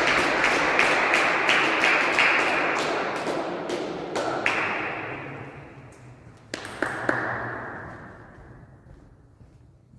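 Table tennis ball taps and bounces echoing in a sports hall: a quick irregular string of taps that dies away over the first few seconds, then a few single taps past the middle.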